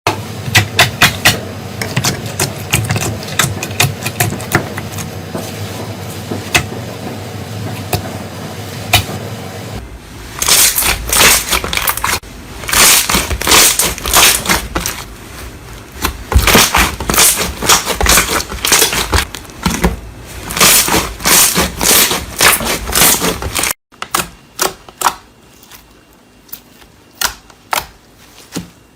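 Slime being squeezed and pressed by hand, giving a dense, irregular run of crackles, pops and clicks. The texture changes abruptly about ten seconds in and again near the end, where it becomes quieter and sparser.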